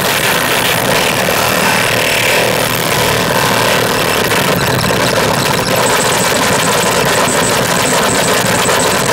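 Harsh electronic noise music played live on tabletop electronics: a loud, dense, unbroken wall of noise across the whole range, with a fluttering high whine coming in about six seconds in.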